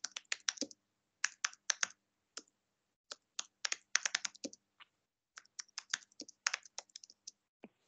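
Typing on a computer keyboard: irregular runs of quick key clicks, broken by short pauses between words.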